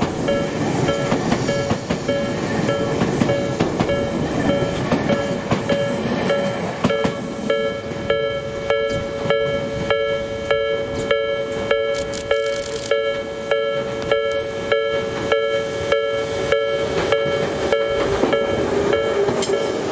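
An electric commuter train runs past close by with a rumble of wheels on rail. Japanese level-crossing warning bells keep ringing throughout, two alarms at slightly different pitches striking about two to three times a second, and they stand out plainly once the train has gone. The Tobu 100 series Spacia limited express begins to pass near the end.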